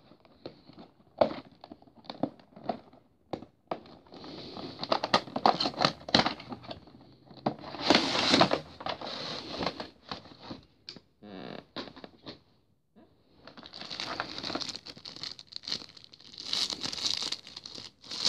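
Plastic packaging crinkling and a cardboard box being handled as a model airliner is unpacked. Scattered clicks and knocks come in the first few seconds, then long stretches of crinkling with a short pause about two-thirds of the way through.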